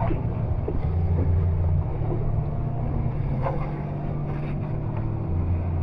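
Boat engine idling with a steady low drone.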